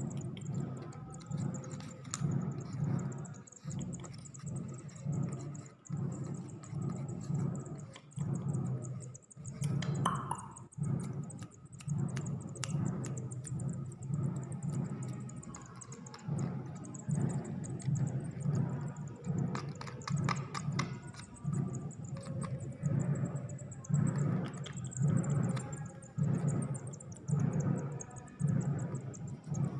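Nestling songbirds cheeping thinly and rapidly, high-pitched and continuous, as they beg. Under it runs a regular low pulse about once a second.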